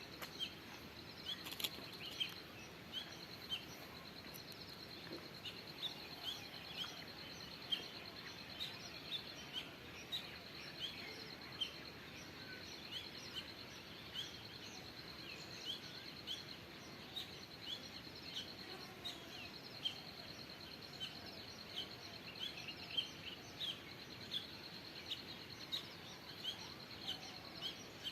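Forest ambience: many short bird chirps, a couple a second, over a steady high-pitched insect trill and a low background hiss.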